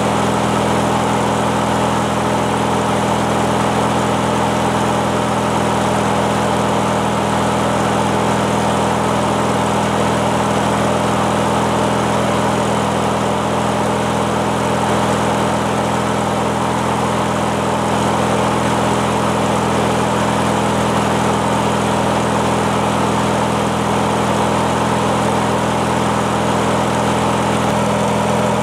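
Briggs & Stratton 19.5 hp twin-cylinder engine of a Craftsman riding mower running steadily in place, at an even speed throughout.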